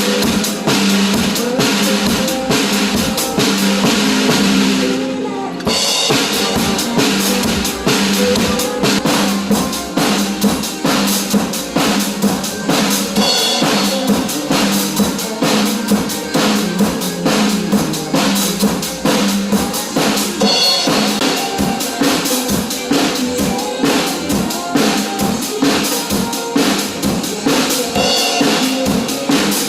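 Drum kit played along to a pop song's backing track: a steady beat of kick, snare and cymbals over the band, with a brief break about five seconds in.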